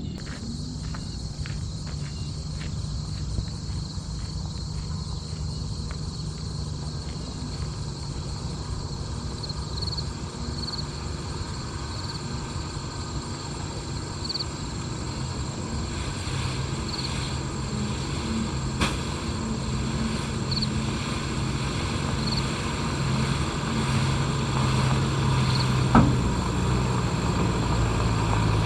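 Engine of a loaded gravel dump truck running steadily, growing gradually louder as it works nearby.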